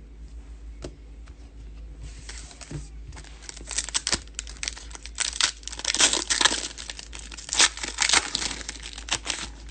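Foil trading-card pack wrapper being torn open and crinkled in the hands. Light handling at first, then a dense run of crackles from about two seconds in, loudest past the middle.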